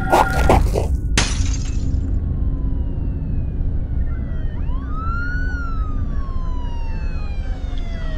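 A sharp crash of breaking glass about a second in, which fades quickly. Then a siren wails: it rises near the middle and falls slowly to the end, over a steady low drone.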